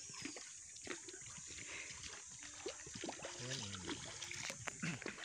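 River water trickling and lapping, with small splashes. A faint voice comes in briefly about three and a half seconds in.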